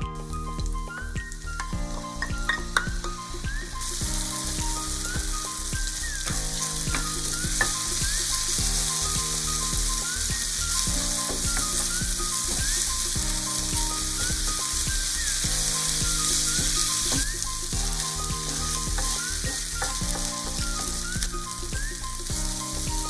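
Food sizzling in a hot pan as it is stir-fried, the sizzle growing louder about four seconds in and easing again near the end. Background music plays throughout with a changing chord pattern.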